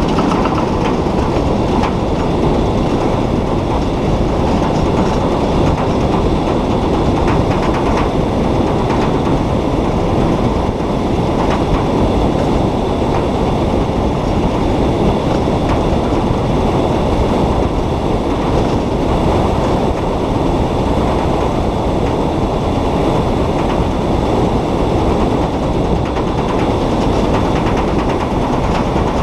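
Steady rumble and rattle of a small electric solar race car rolling along the track, picked up by a camera mounted on its body.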